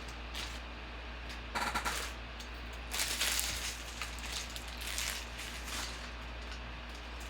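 Rapid crackling from trading cards and foil pack wrappers being handled, coming in three short bursts over a steady low electrical hum.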